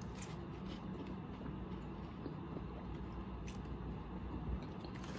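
Faint sounds of a person eating: chewing, with a few small clicks of a fork, over a low steady hum.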